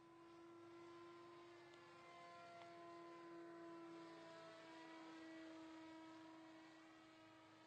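Faint, steady whine of a model flying wing's electric motor and propeller in flight overhead. It grows a little louder through the middle and eases off near the end.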